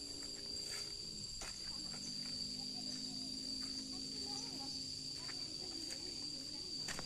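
Insects chirring in a continuous, steady high-pitched drone, with a few faint clicks and distant voices underneath.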